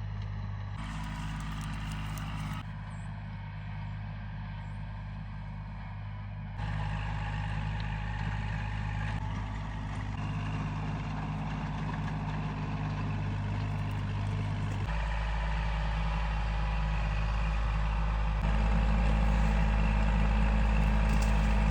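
Tractor engine running at a steady pace. Its note shifts abruptly a few times and grows louder over the last few seconds.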